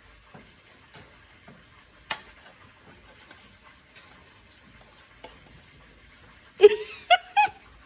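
A few faint clicks of a metal fork against an aluminium pot and a plastic bowl as noodles are served out. Near the end come three short, louder vocal sounds in quick succession, rising and falling in pitch.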